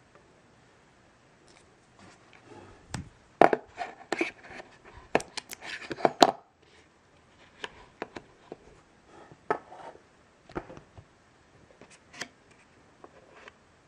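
Cardboard tray and paper wrapping of an iPad mini box handled by hand: a dense cluster of sharp crinkles and clicks from about three to six and a half seconds in, then scattered softer clicks and rustles.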